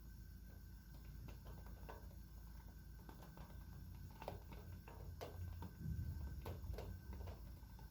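Faint rain: scattered drops tapping irregularly, more often after a few seconds, over a low steady rumble.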